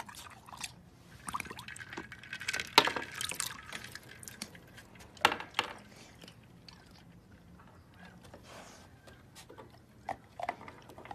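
A dog fishing for ice cubes in a bowl of ice water: water splashing and ice cubes clinking, with scattered sharp knocks. The loudest knock comes about three seconds in and another a little after five seconds.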